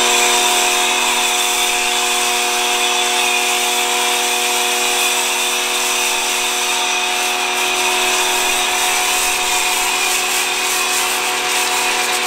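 Muc Off electric pressure washer running with its snow-foam lance, a steady pitched motor drone under the hiss of foam spraying onto a mountain bike.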